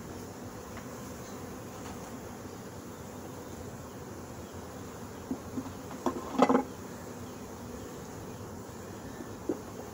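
Many honey bees buzzing steadily, a hum with a clear pitch. About five to six and a half seconds in comes a short cluster of wooden knocks and clatters as frames are handled, with one more knock near the end.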